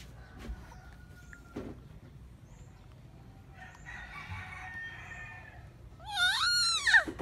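A single loud, drawn-out animal call near the end, about a second long, rising in pitch and then falling away.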